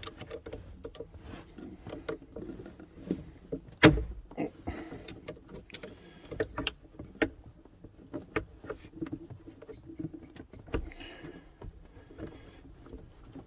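Scattered clicks and knocks of a spanner working on a battery terminal bolt, with a sharp knock about four seconds in.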